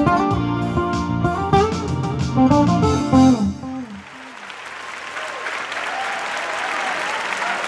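A guitar instrumental plays its last notes and stops about three and a half seconds in. Audience applause follows and builds.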